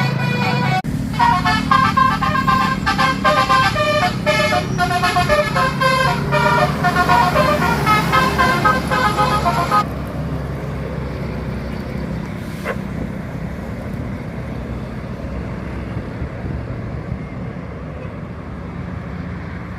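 A tour bus's multi-tone 'telolet' horn playing a quick tune of short notes, cutting off about ten seconds in. The low rumble of bus engines and traffic carries on after it.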